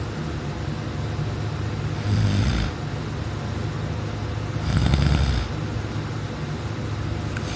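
A sleeping person snoring loudly: two short snores, about 2 and 5 seconds in, each with a rasping, hissy edge over a deep rumble.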